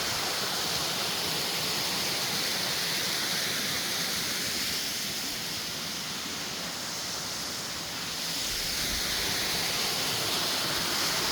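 Waterfall rushing: a steady wash of falling water, a little softer for a few seconds midway before swelling again.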